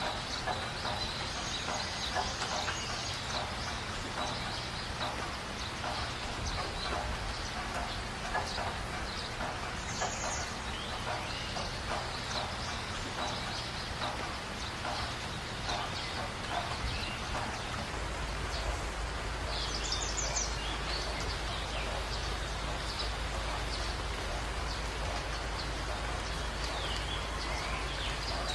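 Night-time chorus of calling insects: dense rapid chirping with a steady high trill, and a brief higher buzz about ten seconds in, again about twenty seconds in, and near the end, over a constant low rumble.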